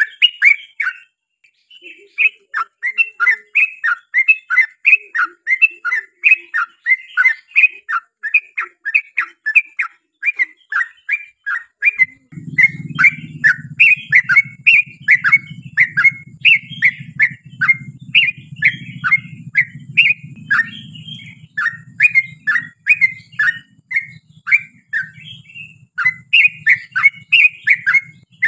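Yellow-vented bulbul (trucukan) singing a long, rapid run of short descending chirping notes, about two or three a second. A low steady hum comes in about twelve seconds in.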